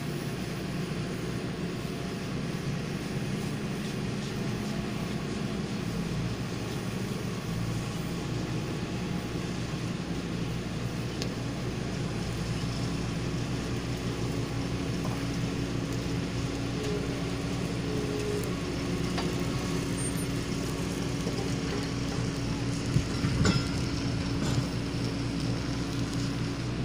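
Heavy construction machinery's diesel engines running steadily in a low drone with a steady hum, and no pile-hammer blows. A few sharp knocks sound near the end.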